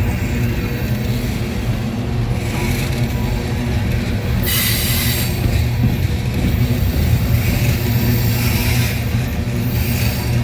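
CSX freight train rolling past: a steady low rumble of the cars on the rails. Brief bursts of higher wheel-on-rail hiss come about four and a half seconds in and again near the end.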